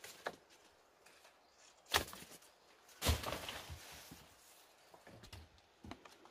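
Irregular knocks and thuds with handling noise, the loudest about three seconds in, trailing off over about a second.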